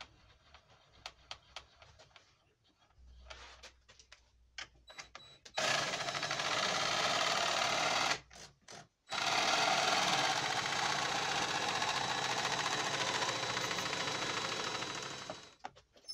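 A few light taps and clicks, then a DeWalt cordless drill driving screws into plywood in two long runs, the first about two and a half seconds, the second about six seconds and trailing off at the end.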